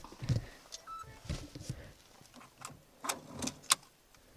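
Irregular clicks, taps and light knocks of hard plastic parts and a wiring connector being handled and unplugged during steering wheel disassembly.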